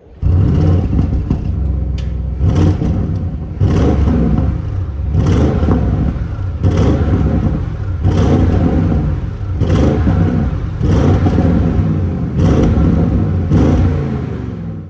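Audi RS6 Performance's 4.0-litre twin-turbo V8 being revved repeatedly: about ten sharp blips, one every second and a half or so, with the revs falling back after each one.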